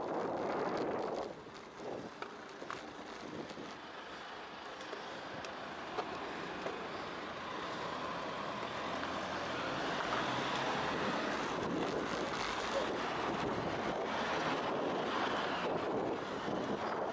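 Wind rushing over the microphone of a camera on a moving bicycle, mixed with city road traffic close by. The noise dips about a second in, then grows gradually and stays louder through the second half as the bike filters past stopped cars and a delivery van.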